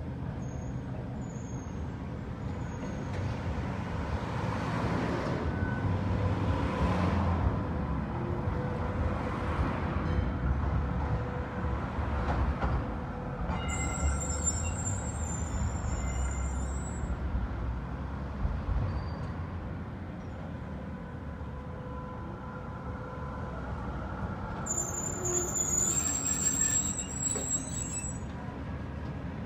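Street traffic and a tram passing, with a steady low rumble. About halfway through and again near the end the tram's wheels squeal high-pitched as it takes curved track.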